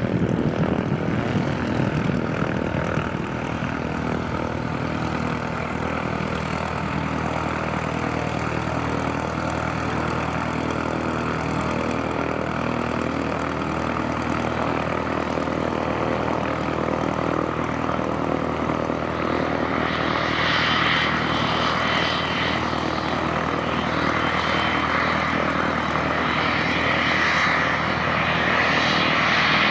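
Airplane engine running steadily, a layered hum of several steady tones, with a hissing higher sound swelling up from about two-thirds of the way through.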